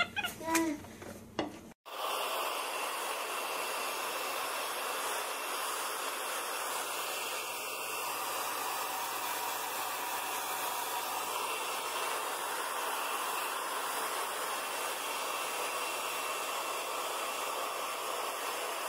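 Handheld hair dryer blowing steadily, an even hiss that starts about two seconds in after a brief snatch of other sound.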